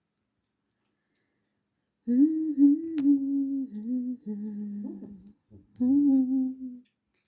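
A woman humming a tune to herself with held notes, starting about two seconds in, in two phrases with a short break between them.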